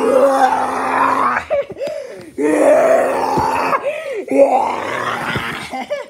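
A child's voice making loud, strained groaning cries without words: three long cries, one after another, playing out a scuffle between toys.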